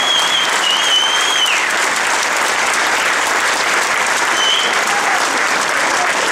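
Crowd of spectators applauding steadily, with a high wavering tone over it that slides down about a second and a half in.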